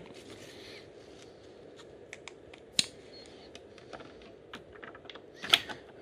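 Scattered light clicks and taps from the 3D printer's power supply cover being handled and fitted back on, with a sharper knock about three seconds in and a short cluster of clicks near the end.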